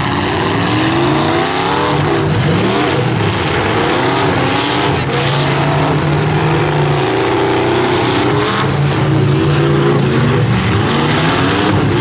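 Several demolition derby cars' V8 engines running at once, revving up and down repeatedly over a dense, continuous exhaust noise.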